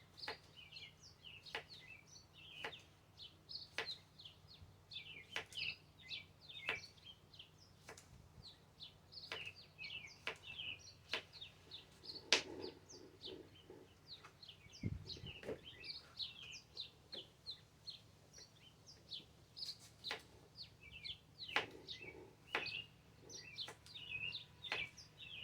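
Knife slicing cucumbers, a short sharp chop roughly once a second with a pause midway, while small birds chirp steadily in the background.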